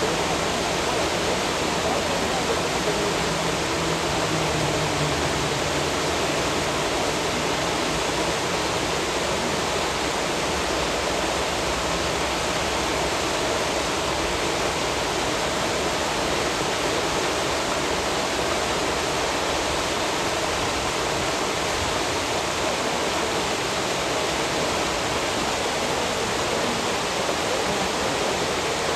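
Water rushing steadily, an even hiss with no breaks or separate splashes.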